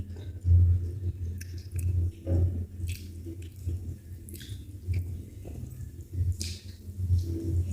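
Close-up chewing of someone eating ugali, with irregular wet mouth clicks and smacks.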